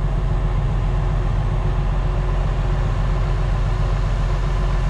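Semi truck's diesel engine idling with a steady, even low rumble.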